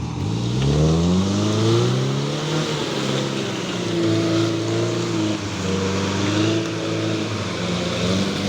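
Off-road 4x4's engine revving up over about two seconds, then held at high revs that rise and fall unevenly, as when the vehicle works for grip on a slippery track.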